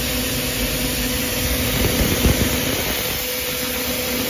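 CNC milling machine cutting an EDM electrode with a small end mill: steady spindle and machine running noise with a constant hum and hiss.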